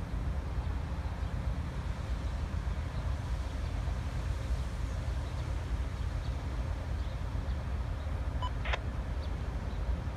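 Diesel locomotives idling: a steady low rumble, with a brief high squeak about eight and a half seconds in.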